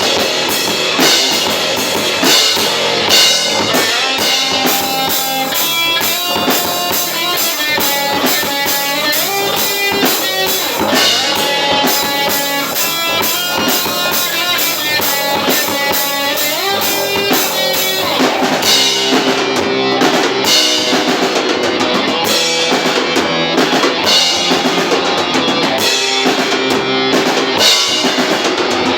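Experimental metal band rehearsing live: a drum kit pounding with bass drum and cymbals under electric guitar riffs, with no singing. The playing changes about eighteen seconds in.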